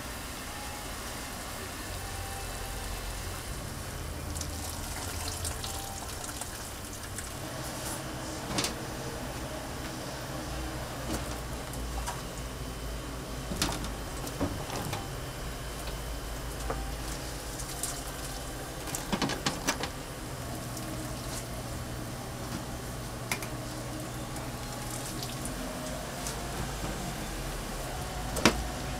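Restaurant kitchen sounds while pig's trotters (jokbal) are cooked for frying: a steady hiss with scattered knocks and clatters of utensils, a cluster of them about two-thirds of the way through and a sharp knock near the end.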